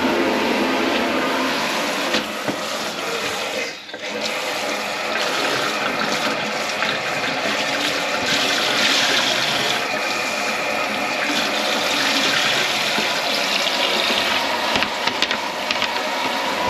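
Kitchen tap running water into the sink and down the drain line, flushing the grease-clogged drain as it is snaked out, with a brief dip about four seconds in.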